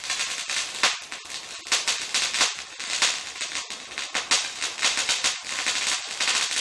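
Ground fountain firework spraying sparks, with a steady hiss and dense, fast crackling.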